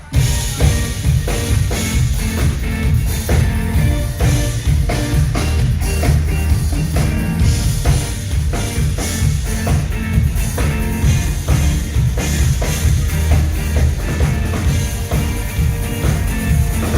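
Live band playing an instrumental passage at a sound check: a drum kit keeps a steady beat with kick and snare over a heavy bass line and held instrument tones. The sound drops out for a moment right at the start, then the band comes straight back in.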